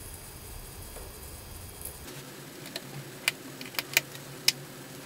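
About five sharp, light metallic clicks in the second half: small screws and a screwdriver tapping against a MacBook Pro's aluminium bottom case while its screws are being put back in.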